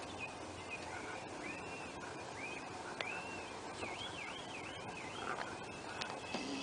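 A bird singing in the garden: a run of clear whistled notes that swoop up and down, coming faster in a quick warbling run around the middle, with a couple of sharp clicks.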